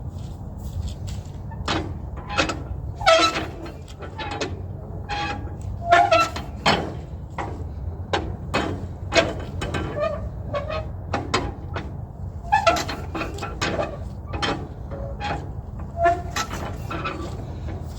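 Irregular metallic clanks and squeaks from hand-cranking a McCormick W6 tractor, over a steady low hum.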